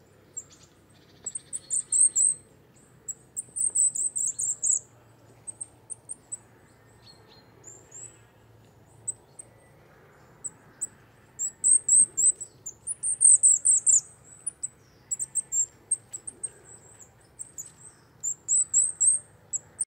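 Common kingfisher calling: shrill, very high-pitched whistled notes, delivered in quick runs with pauses between them, the loudest run a little past the middle.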